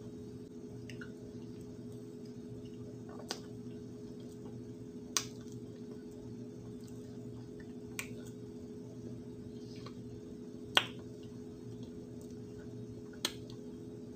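Cornstarch being chewed, giving five short, sharp crunches a couple of seconds apart, the fourth the loudest, over a steady low hum.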